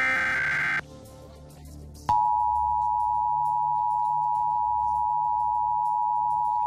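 Emergency Alert System tones: the last burst of the SAME digital header, a rapid warbling data chirp, ends under a second in. After about a second's pause, the steady two-tone EAS attention signal (853 and 960 Hz) comes on about two seconds in and holds.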